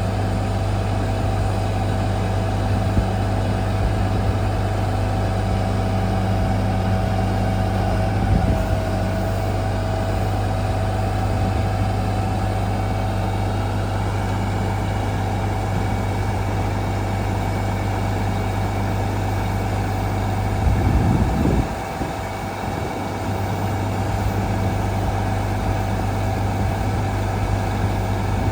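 Diesel engine of a Daewoo concrete pump truck running steadily with a low, even hum. There is a short thump about eight seconds in, and a brief louder burst near twenty-one seconds, after which the level dips for a moment.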